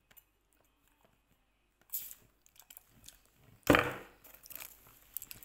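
Handling noises close to the microphone: a short hiss about two seconds in, then a loud thump with a rustle just before four seconds as the phone is moved, followed by a few light clicks.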